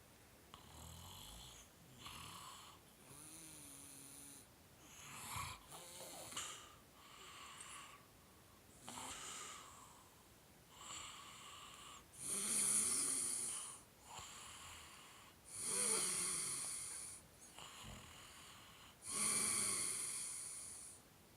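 Snoring: a run of wheezy, hissing breaths every second or two, the three loudest in the second half, each over a second long.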